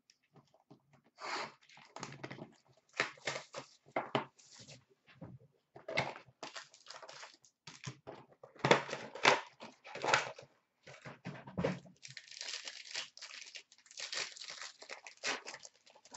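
Plastic wrapping and a foil card pack being torn open and crinkled by hand, in irregular rips and rustles, with a denser run of crinkling near the end.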